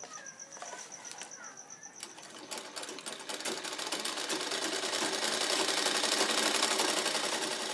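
Hand-cranked sewing machine stitching: a rapid, even clatter of the needle mechanism starts about two seconds in and grows louder. Before it there is a faint high pulsing tone.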